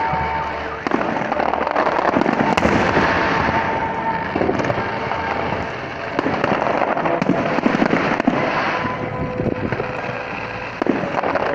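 Aerial fireworks display: many small pops running together into a continuous crackle, with a few louder bangs through it, about a second in, mid-way and near the end.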